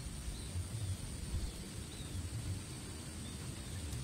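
Rural outdoor ambience: a low, uneven rumble on the microphone, several faint short bird chirps, and a steady high-pitched drone.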